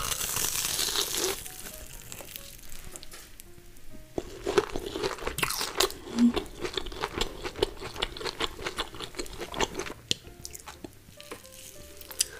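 Close-up crunching as a breaded deep-fried cheese cutlet is bitten and chewed: a loud crunchy bite at the start, then a long run of crackly crunching from about four seconds in to about ten seconds. Soft background music plays underneath.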